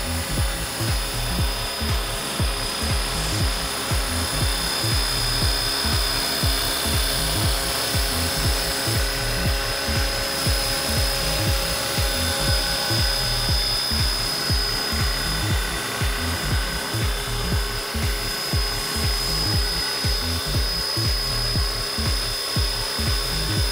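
Scale Huey radio-controlled helicopter hovering low, a steady high whine from its drive over a continuous throbbing rotor chop.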